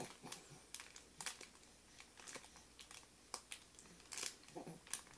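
Faint, scattered crinkling and rustling of a baby's crinkly fabric tummy-time mat as the baby shifts and presses on it, in short irregular crackles.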